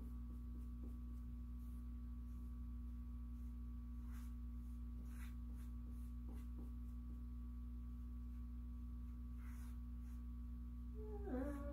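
Steady electrical hum with a few faint soft scrapes. Near the end a wavering high whine comes in, like a dog whimpering.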